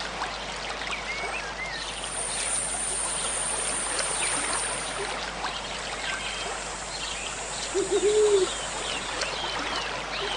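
Stream running steadily, with small birds chirping throughout. About eight seconds in, a bird gives a brief low hooting call, the loudest sound.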